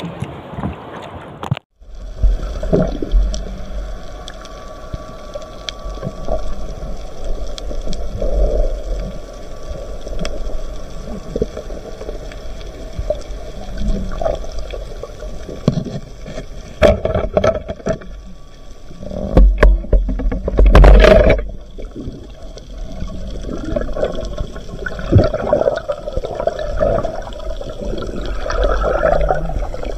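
Water sounds picked up by a camera underwater: a muffled rumble and bubbling, with scattered clicks and louder gurgling bursts about two-thirds of the way through.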